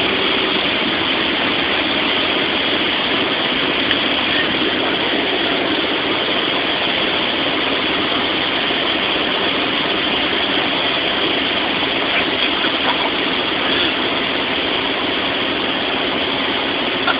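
Steady engine and propeller drone of a small light airplane, heard from inside its cabin.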